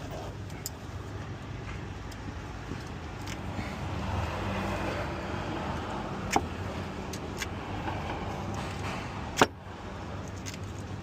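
A steady low hum with scattered small metallic clicks, and two sharp clicks about six and nine seconds in, the second the loudest.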